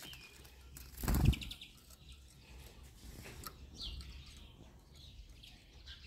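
A female greenfinch's wings flap briefly about a second in as she flies from the hand, followed by a few short, high bird chirps.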